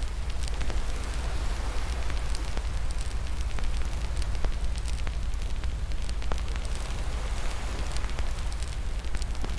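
Wood fire in a fireplace crackling steadily, with frequent sharp pops over a low rumble of the flames.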